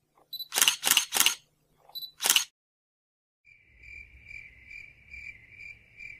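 A few sharp clicks in the first two seconds, then after a short silence a cricket chirping steadily, about three high chirps a second.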